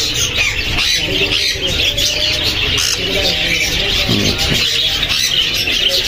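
Many caged parrots chirping and squawking at once, a dense, continuous chatter of overlapping calls.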